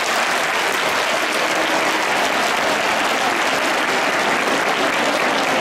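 Large stadium crowd applauding steadily, a dense, even clatter of many hands with faint voices mixed in.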